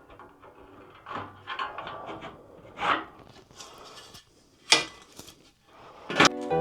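Wooden shelf boards being handled: irregular rubbing and scraping with scattered knocks, and two sharp knocks, the first about five seconds in and the second just after six.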